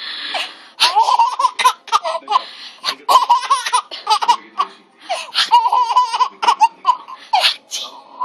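A baby laughing hard, in many short, high-pitched bursts one after another.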